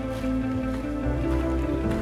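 Background music of slow, sustained chords, shifting to new notes about a second in and again near the end.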